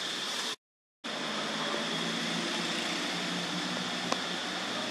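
Steady outdoor background noise with a constant high-pitched hum running through it. The sound cuts out completely for about half a second near the start, and there is a single faint click about four seconds in.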